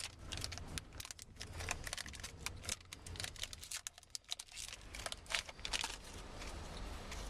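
Plastic sticker-pack wrapper crinkling and sticker cards being handled: irregular light clicks and rustles.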